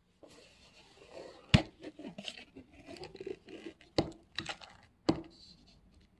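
Paper-and-foil lid of a Nissin Cup Noodle cup being peeled open: a crinkly tearing rustle broken by several sharp clicks.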